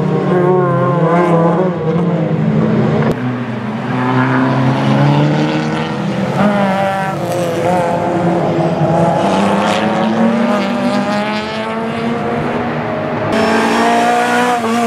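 Racing car engines at high revs on a circuit, several overlapping, the pitch climbing under acceleration and dropping at each gear change. The sound jumps abruptly about three seconds in and again near the end.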